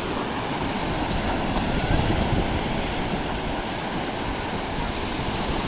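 Ocean surf washing onto a beach: a steady rushing noise with no distinct breaks.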